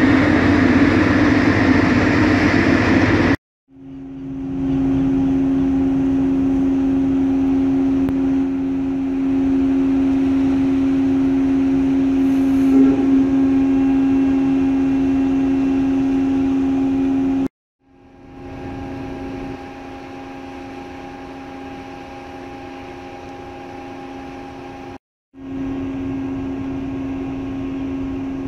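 Steady machinery hum aboard a ship, with a strong low tone and fainter higher tones above it. It cuts off abruptly three times and resumes, quieter in the middle stretch. At the start there is a few-second loud rush of broad noise.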